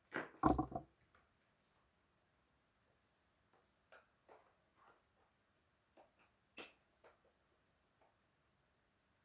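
Faint scattered clicks and knocks of parts being handled during a repair of a Brother DCP-T310 printer's power supply: a quick cluster of knocks in the first second, then single clicks, the sharpest about two-thirds of the way through.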